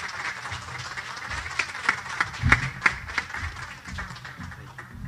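Small audience applauding: scattered hand clapping that builds to its loudest in the middle and dies away near the end.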